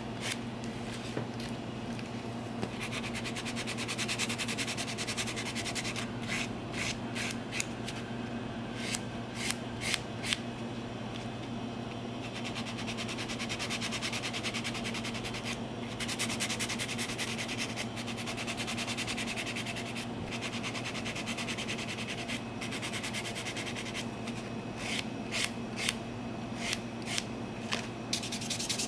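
Nail file rubbing across gel-polished nails in quick back-and-forth strokes, filing the gel down, over a steady low hum.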